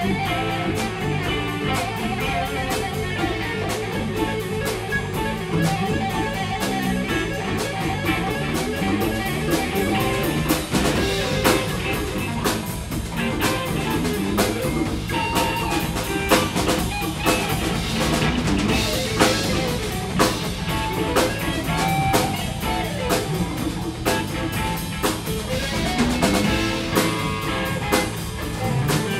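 Live instrumental band jam: two electric guitars playing over bass guitar, drum kit and djembe, with a steady drum beat.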